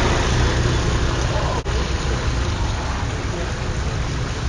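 Steady heavy construction machinery noise, a dense, low engine rumble without distinct hammer blows, broken by a brief dropout about a second and a half in.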